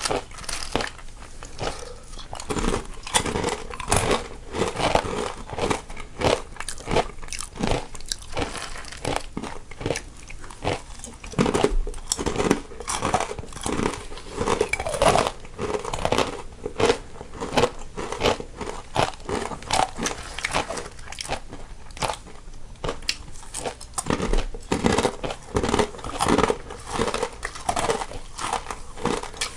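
Two people biting and chewing crunchy snacks close to the microphones, one in the left channel and one in the right, a steady run of crisp crunches with no pauses.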